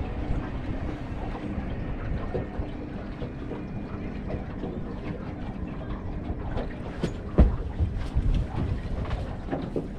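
Wind buffeting the microphone on a boat, a steady low rumble, with scattered light knocks and one louder thump about seven seconds in.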